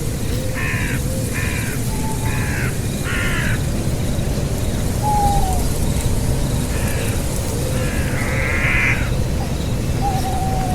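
An animal calling: four short, harsh calls in quick succession, then two more some seconds later, over a steady low rumble.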